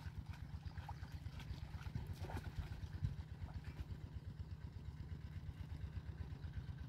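A small engine running steadily at low speed: a fast, even, low thudding pulse.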